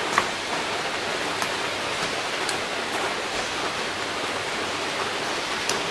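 Steady even hiss, with a few faint light clicks as the rifle's two receiver pins are worked out.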